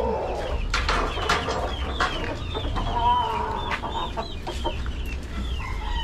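Chickens clucking in a string of short, falling calls while a gamefowl rooster is caught in a wire pen, with scattered sharp knocks and scuffles in between.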